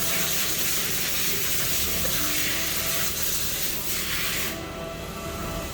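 CNC machine cutting a steel part: a steady hissing, rushing machining noise, whose high hiss drops away about four and a half seconds in.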